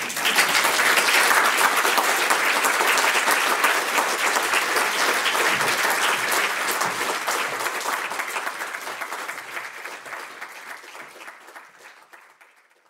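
Lecture audience applauding, many people clapping. It starts at once, holds steady for several seconds, then gradually thins out and fades away near the end.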